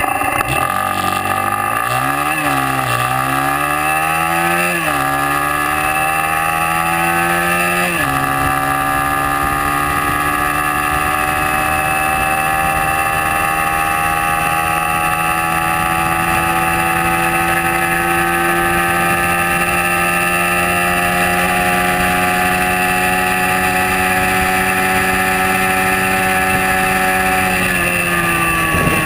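Hyosung Karion 125 cc motorcycle engine accelerating hard from a standstill, its pitch climbing through the gears with three upshifts in the first eight seconds. It then pulls slowly toward top speed in top gear, and the revs fall away near the end as the throttle closes.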